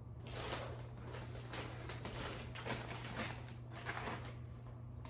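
Soft rustling and light knocks of plastic nursery pots and a bag of potting soil being handled and set out on a table, over a faint steady low hum.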